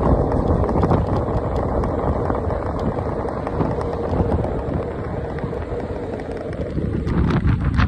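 Wind buffeting the microphone over the rumble of an electric scooter rolling along a paved street, steady throughout, with a few sharp knocks near the end.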